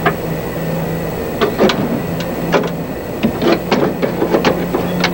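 Irregular metallic clicks and knocks of hand tools and parts being worked in a car's open engine bay, over a steady low hum.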